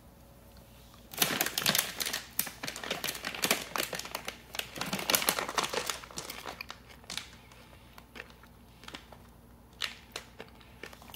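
Crinkling of a plastic M&M's candy bag being picked up and handled. A dense run of crinkles starts about a second in and lasts about five seconds, followed by a few scattered crinkles.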